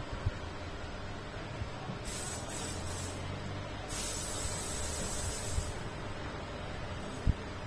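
Paint being sprayed in hissing bursts: a short, broken burst about two seconds in, then a longer one lasting about a second and a half. A steady low hum runs underneath, and there is a single sharp knock near the end.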